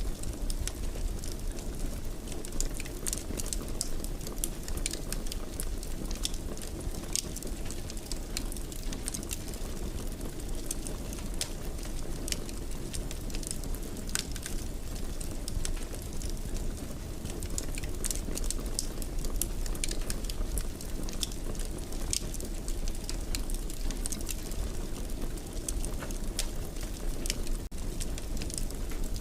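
Wood fire burning in a fireplace, crackling and popping at irregular moments over a steady low rumble.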